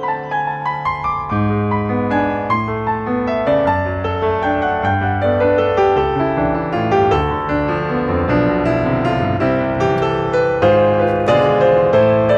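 Background piano music, a gentle melody over chords.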